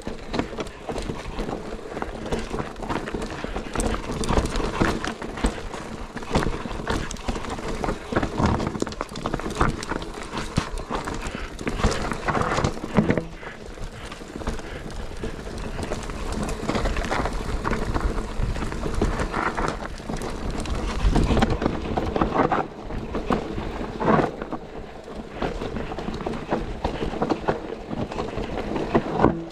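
Enduro mountain bike riding down a rough trail: tyres rolling over dirt and rocks, with the bike clattering and rattling over the bumps in a dense run of knocks.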